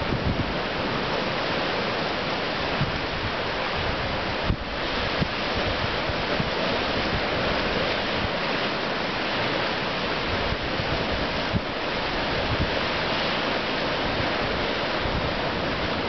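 Pacific Ocean surf surging and washing through a rocky channel between rock outcrops, a steady rushing of churning water. Wind buffets the microphone with low, uneven rumbles.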